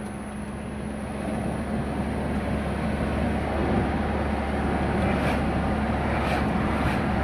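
Steady engine and road noise of a moving vehicle, with a constant low hum, growing a little louder after the first couple of seconds.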